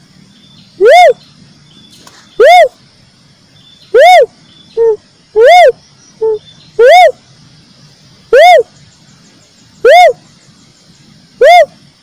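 Cuckoo-dove (uncal) lure-call recording: a loud, repeated single note that rises and falls in pitch, eight times at about one every one and a half seconds. A couple of shorter, lower notes fall between them about halfway through.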